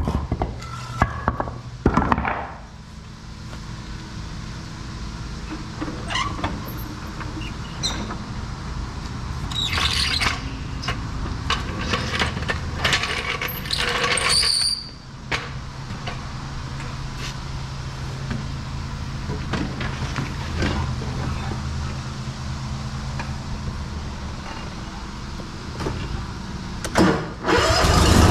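Gravely lawn mower engine idling with a steady low hum, with a few clanks and knocks over it, and a sharp rise in loudness at the very end.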